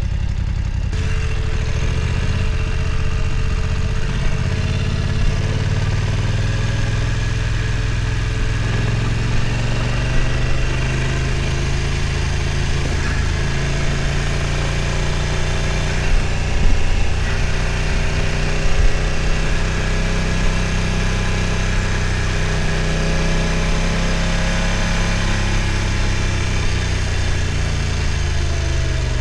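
BMW F900 XR's parallel-twin engine running at low revs, its pitch rising and falling gently with the throttle. A few brief knocks come past the middle.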